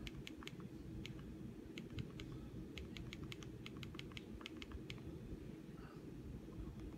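Quick plastic clicks of a TV remote's buttons being pressed, in irregular runs with a dense flurry around the middle.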